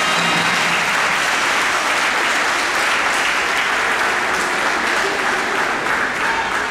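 Audience applauding in a steady, even clatter of clapping at the end of a synchronized swimming routine; the routine's music cuts off just as it begins.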